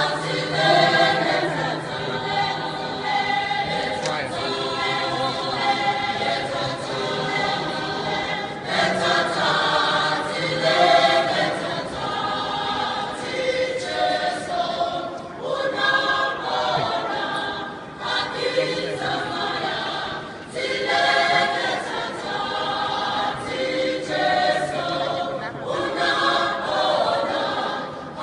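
Large mixed church choir of men and women singing together in parts, in long phrases with brief breaks between them.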